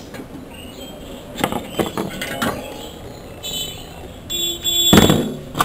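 Metal hand tools handled on a workbench: a few clinks and knocks, two brief ringing tones, and the loudest knock about five seconds in.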